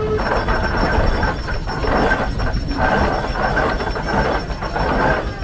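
Minneapolis steam traction engine running: a steady steam hiss with irregular surges.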